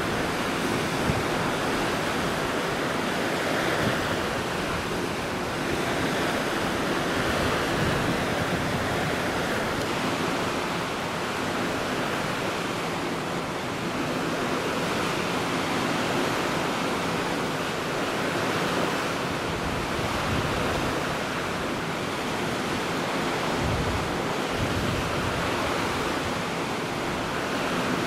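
Sea water rushing with wind, a steady noisy wash that swells and eases every few seconds.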